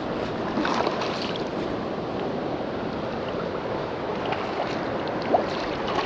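Steady rush of stream water flowing over rocks, an even hiss with no breaks.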